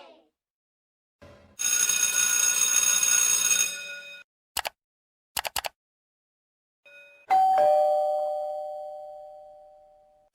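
Two-tone doorbell chime: a ding-dong of a higher note followed by a lower one, both ringing out and fading slowly. Before it come about two seconds of a harsh, buzzing ring and then a few quick clicks.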